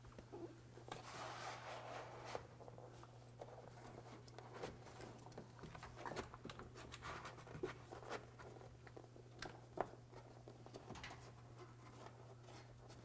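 Faint rustling, crinkling and scratching as a foil-faced butyl sound-deadening sheet (Dynamat) has its backing paper peeled off and is pressed by hand onto a car's roof panel, with scattered small ticks and taps. A steady low hum runs underneath.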